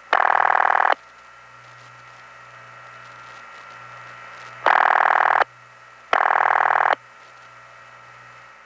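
Bell System rural double ring heard as ringback over a long-distance telephone line. Two buzzy rings a moment apart, a pair near the start and another pair about five seconds in, with steady line hiss and hum between.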